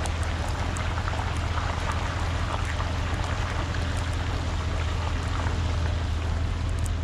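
Work truck's engine running with a steady low rumble, under a continuous grainy hiss and scattered light ticks.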